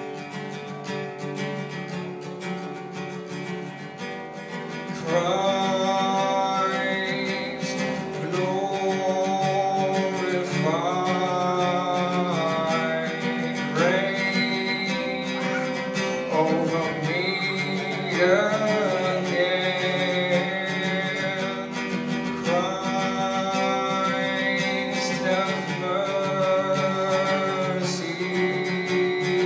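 A man singing his own song to his acoustic guitar. The guitar plays alone at first, and about five seconds in the voice comes in, louder, in phrases over the guitar.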